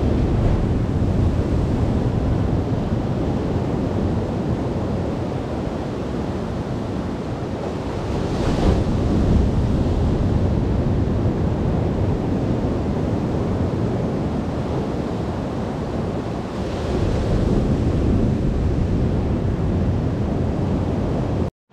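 Ocean surf washing in and breaking, with wind buffeting the microphone. The rush swells louder about a third of the way in and again toward the end.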